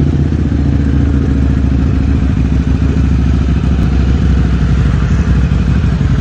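Superbike engine idling loudly and steadily, without revving.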